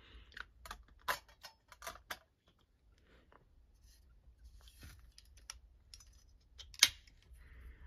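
Clicks and light metallic taps from handling a Mossy Oak 3-in-1 folding hand saw: its blade catch pressed, the interchangeable steel blades pulled out and set down. Several quick clicks in the first couple of seconds, then quieter handling, and one sharper click near the end.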